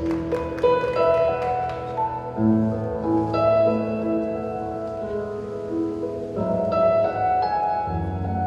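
Recorded piano music over sustained low chords, played through an arena sound system for a color guard show, with a slow melody of held notes.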